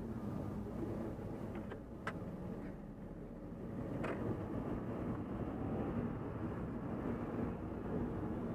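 Volvo S40's engine and road noise heard from inside the cabin while driving in city traffic. The sound eases off about two seconds in, then grows again as the car speeds up, with two short clicks, one about two seconds in and another about four seconds in.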